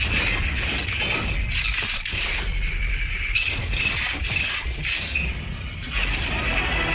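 A run of loud, sudden crashing noises, several in a row over a low rumble.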